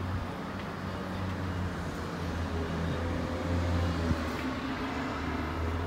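A steady low rumbling hum with an even hiss over it.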